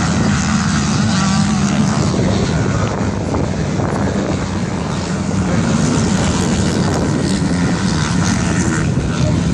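Motocross bike engines racing at a distance: a steady, blended engine drone from several bikes, with revs rising and falling about a second in.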